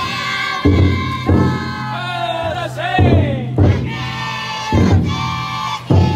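The big taiko drum inside a futon daiko festival float struck with heavy booming beats in a slow, uneven rhythm, while the children riding in the float chant in high voices and the carriers shout along.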